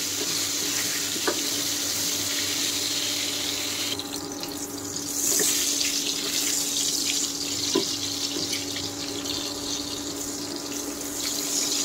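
Pieces of pointed gourd sizzling steadily as they shallow-fry in oil in a pan, with two light knocks from a wooden spatula.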